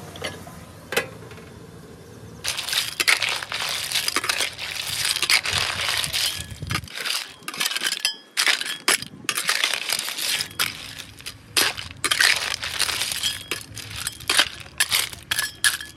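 Snail shells clattering and crunching against each other and the metal wok as they are stirred with a metal spatula, a loud run of rattling strokes starting a few seconds in.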